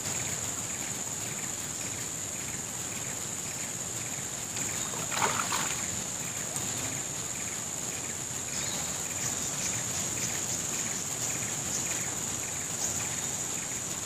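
Fast-flowing river water rushing steadily, with a continuous high-pitched whine over it and a faint chirp repeating about twice a second. A brief louder splash-like noise comes about five seconds in.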